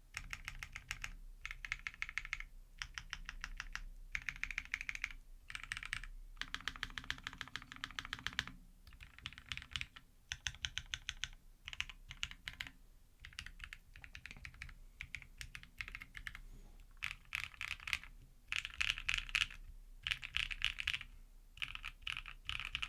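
Typing on a custom mechanical keyboard: runs of rapid keystrokes in bursts of a second or two, with short pauses between them.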